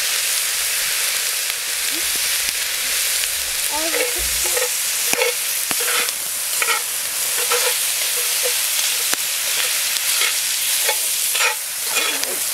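Bacon and onions sizzling in a cast-iron Dutch oven, with a utensil scraping and clinking against the pot as they are stirred, from about four seconds in.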